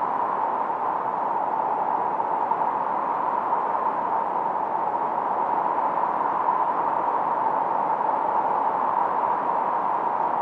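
Steady filtered white noise from a 1972 Minimoog synthesizer, run through a Roland RE-501 Chorus Echo: an even, mid-pitched hiss with the highs and lows rolled off, used as a tinnitus-masking sound.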